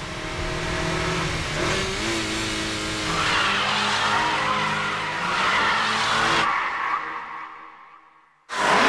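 Mitsubishi Lancer Evolution engine running hard with tyres squealing and skidding as the car slides through a tight hairpin. The sound fades away over the last couple of seconds, then cuts back in sharply at the very end.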